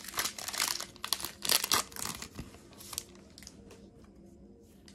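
Foil wrapper of a Pokémon trading-card booster pack crinkling and tearing as it is opened, for about the first three seconds. After that only faint rustles and light ticks as the cards are handled.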